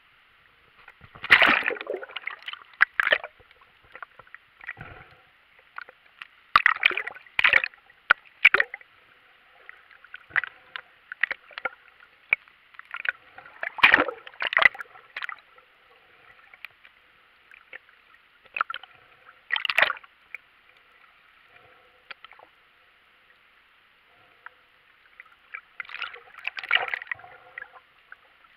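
Water splashing, sloshing and gurgling against the camera as it moves at the surface and under the water, in irregular bursts every few seconds over a steady muffled hiss.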